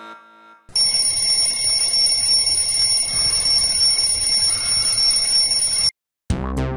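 Alarm clock bell ringing for about five seconds, a loud steady high ring that starts and cuts off abruptly. Synthesizer music with a drum-machine beat starts just before the end.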